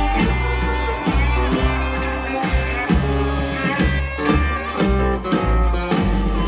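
Live blues band playing an instrumental passage: acoustic and electric guitars picking lines over upright bass notes.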